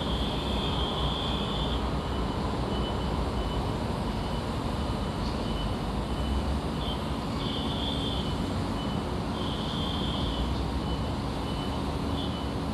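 Construction-site ambience: heavy machinery engines run steadily under a high-pitched backup alarm that beeps on and off, with a few longer tones among shorter beeps.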